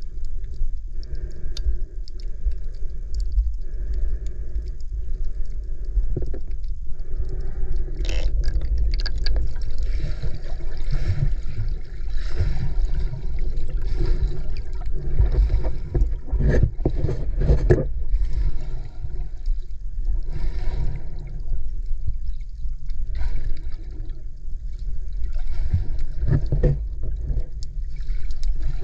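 Water heard through an underwater camera: a steady, muffled low rumble with gurgling and scattered sharp clicks.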